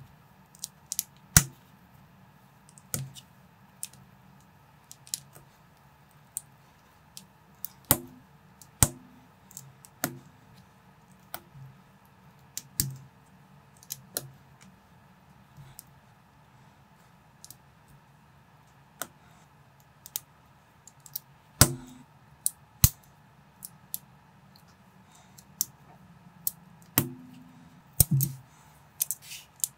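LEGO-compatible plastic bricks clicking as they are pressed and snapped together by hand, in irregular sharp clicks every second or two, some with a dull knock.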